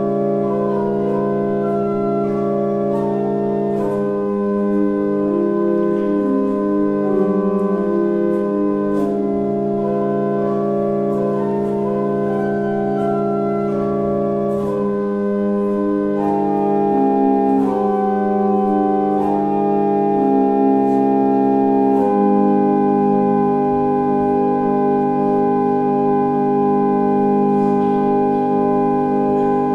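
Church pipe organ playing slow, sustained chords, the notes moving every second or so. About three-quarters of the way in it settles on one long held closing chord.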